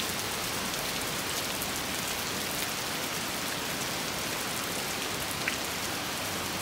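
Heavy downpour of rain falling steadily, an even, unbroken hiss of rain.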